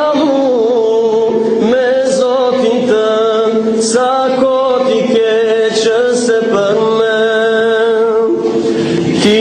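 A man singing into a handheld microphone, long held notes with wavering, ornamented turns between them.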